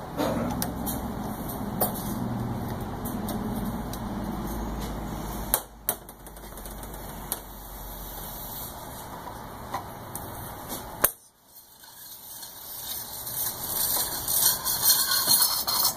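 Small clicks and knocks from a bottle-jack tincture press as it is released and opened, then a rattling clatter of its stainless steel cylinder and press plate being handled near the end.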